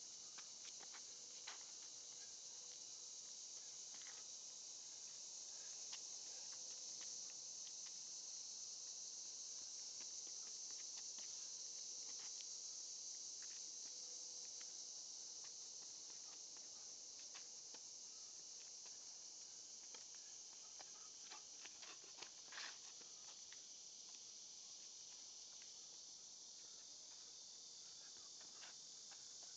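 Faint, steady high-pitched outdoor insect chorus that slowly swells and eases, with scattered light scuffs and taps of sneakers on dirt during boxing footwork.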